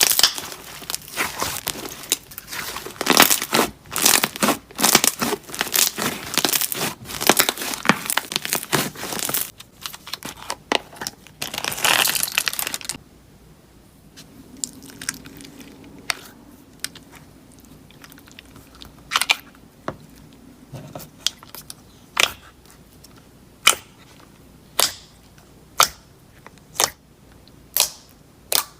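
Slime being squished and worked by hand, crackling and crinkling densely for about the first half. It then drops to sharp single pops about once a second.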